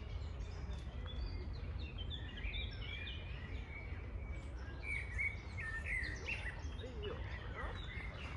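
Several songbirds chirping and singing in quick, overlapping phrases, over a steady low rumble.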